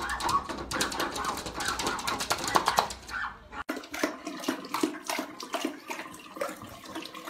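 A dog's vocal sounds with rapid clicking as it paws at a glass sliding door. About three and a half seconds in, the sound cuts to two dogs lapping from a running bathroom sink tap: running water with quick clicks of lapping.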